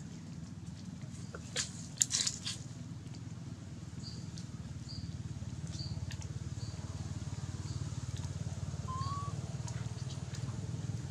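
Outdoor forest-floor ambience: a steady low hum underneath, a few sharp crackles like dry leaves being disturbed about two seconds in, and a row of short high chirps roughly every half second through the middle, with one brief rising whistle near the end.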